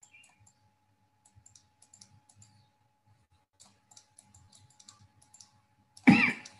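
Faint, irregular light clicks from the computer input being used to handwrite on screen, over a faint steady tone. A man's voice breaks in briefly near the end.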